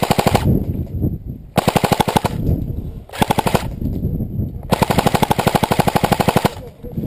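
Airsoft rifle firing four rapid full-auto bursts, each a fast run of sharp clicks; the last burst is the longest, about two seconds.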